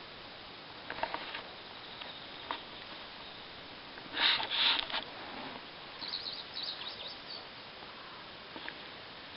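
Marsh birds calling over a steady background hiss: two loud, harsh calls about four seconds in, then a quick run of short high chirps, with a few faint calls elsewhere.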